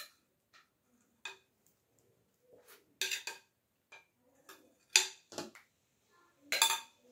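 A metal spoon scraping and tapping against a glass mixing bowl as the last batter is scraped out into a metal pan. It makes a series of separate clinks and knocks, the loudest about five seconds in and again near the end.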